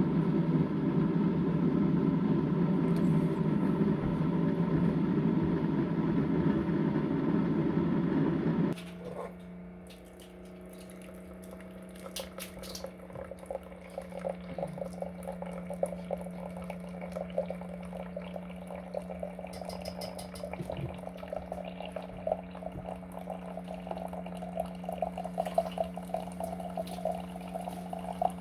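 Car cabin road noise while driving, which cuts off abruptly about a third of the way in. Then a steady low hum with water running from a tap into a sink, and a few light clicks.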